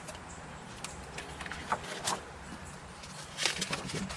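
Paper pages of a ring-binder book being turned by hand: a few short rustles and light clicks, bunched about two seconds in and again about three and a half seconds in.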